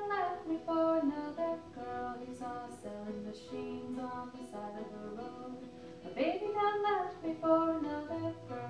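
A woman singing to acoustic guitar and ukulele, both played live. A new sung phrase starts about six seconds in, sliding up into its note.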